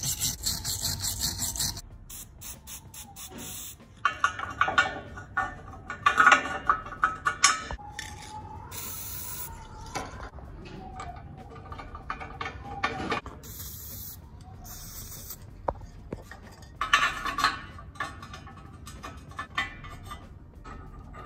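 A wire brush scrubbing rust off a bolt held in a bench vise, in quick rasping strokes, then short hisses of an aerosol spray and a few metal clicks as the bolts are fitted into the frame.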